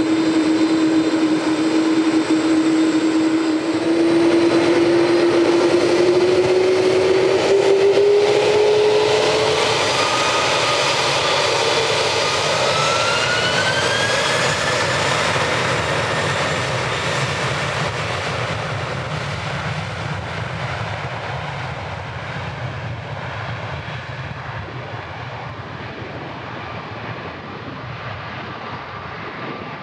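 Jet airliner engines at takeoff power: a loud engine noise with a whining tone that rises in pitch over the first ten seconds, then the sound gradually fades through the second half.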